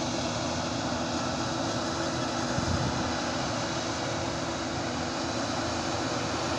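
Distant self-propelled forage harvester chopping maize, with a tractor and trailer running alongside: a steady, even engine drone.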